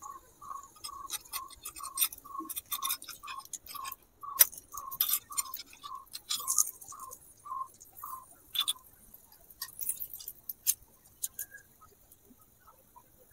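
Small metal spatula clicking and scraping against a miniature iron kadai as a frying pancake is turned and pressed, in sharp irregular clinks that thin out near the end. Alongside, a short high note repeats at an even pace a little over twice a second, stopping about eight seconds in.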